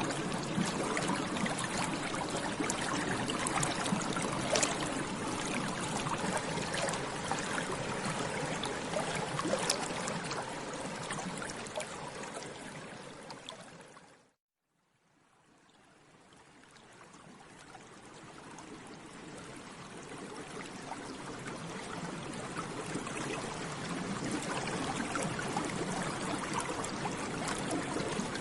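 Water bubbling steadily, a dense fizz of many small bubbles popping. It fades out to silence about halfway through, then slowly fades back in.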